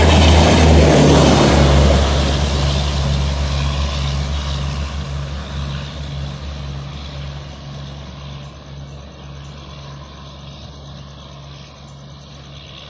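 Humsafar Express passenger train rumbling past and rolling away, its sound fading steadily. A low hum with a faint beat about twice a second stays under it as it recedes.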